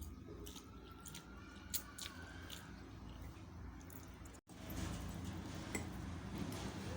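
Close-up chewing of spicy noodles and boiled eggs, with short sharp wet mouth clicks over a steady low background hum. The sound cuts out completely for a moment about four and a half seconds in.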